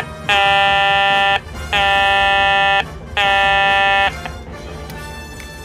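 Electronic warning horn from the 1985 G.I. Joe U.S.S. Flagg's toy speaker microphone, one of its four built-in sound settings. It gives three buzzing blasts about a second each, with a short blip just before the first.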